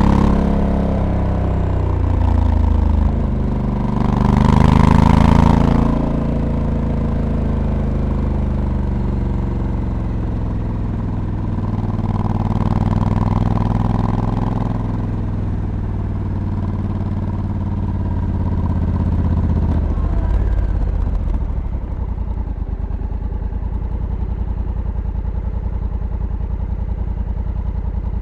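Honda Africa Twin's 1084 cc parallel-twin engine heard onboard, its pitch rising and falling with the throttle, with a brief rush of noise about five seconds in. About twenty seconds in it drops to a steady, even idle.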